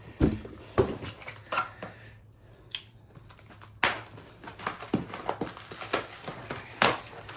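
Cardboard box and packing material being handled and emptied out: rustling and crinkling, with about half a dozen sharp knocks.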